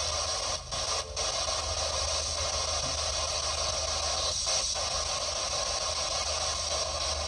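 Steady static-like hiss over a low hum, dipping out briefly a few times.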